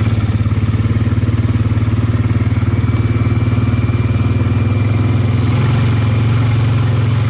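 ATV engine running steadily as the quad is ridden along a trail, with a fast even throb. A faint high whine comes in about three seconds in.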